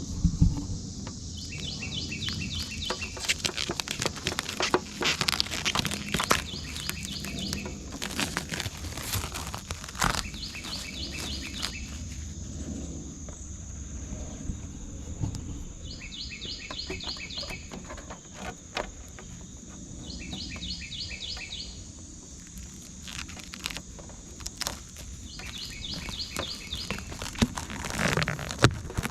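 Protective plastic film being peeled off a new headlight lens, crackling and crinkling in irregular bursts with handling clicks. An insect chirps in short pulsed bursts every few seconds.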